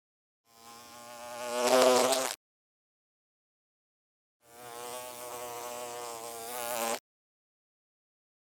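A bee buzzing in flight, in two separate passes. The first swells louder to a peak and then cuts off. The second, about two seconds later, holds a steadier buzz before stopping abruptly.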